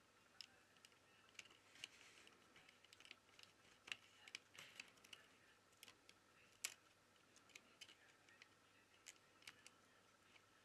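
Faint, scattered small plastic clicks and taps as the Xperia Z3 Compact's plastic inner frame is pressed and snapped into place over the circuit board, the sharpest clicks coming about four and six and a half seconds in.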